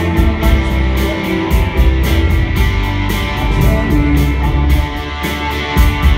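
Rock band playing live and loud, electric guitar strumming over a steady beat.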